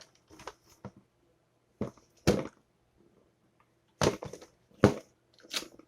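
A string of irregular sharp knocks and clicks, about eight in all, as of hard parts being handled and set down, with short quiet gaps between them.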